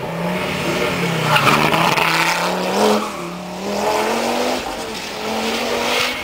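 Historic rally car engine revving hard as the car approaches and passes, its pitch climbing and dropping with each gear change. It is loudest about two to three seconds in, then dips and swells again as it drives away.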